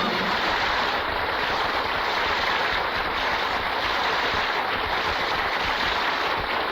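Studio audience applauding steadily at the end of a song, heard on a 1950 radio transcription.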